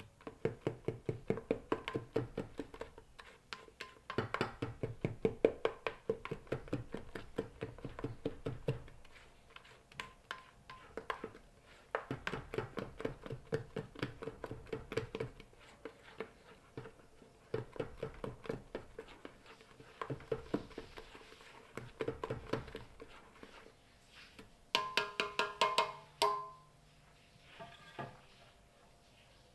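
Utensil beating cake batter in a stainless steel mixing bowl: rapid, rhythmic clicking against the metal in bursts of a few seconds, with the bowl ringing. Near the end comes a louder burst of taps with a clearer ring.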